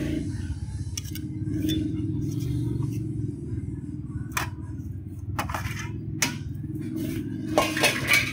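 A spatula scraping and tapping against a wok and a plate while the last of a stir-fry is scooped out, making a few short sharp clicks that bunch up near the end, over a steady low hum.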